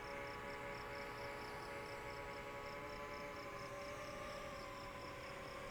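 DJI FPV drone's motors and propellers whining with several steady tones, their pitch wavering and shifting slightly with throttle changes about four seconds in. Crickets chirp in a fast, even pulse underneath.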